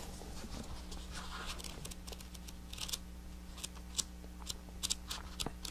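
Thin Bible pages being leafed through by hand: a series of soft, short papery flicks and rustles that come more often in the second half. A faint steady electrical hum lies beneath.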